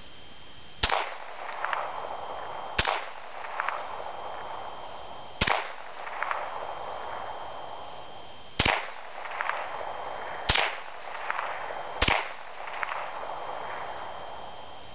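Ruger Mark III Target pistol firing .22 LR rounds in slow, aimed single shots: six sharp cracks spaced about one and a half to three seconds apart. Each crack is followed by a fainter, drawn-out sound under a second later.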